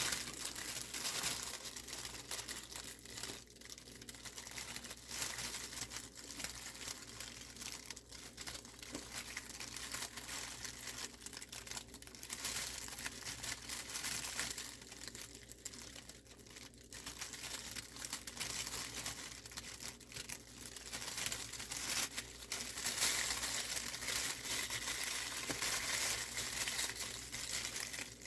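Plastic cooking bag crinkling and rustling continuously as it is handled and tied closed with its tie, louder and denser in the last few seconds.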